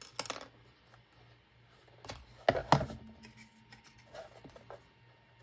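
A few sharp knocks and clicks as small objects are handled and set down on a workbench cutting mat, loudest about two and a half seconds in, with softer ticks after.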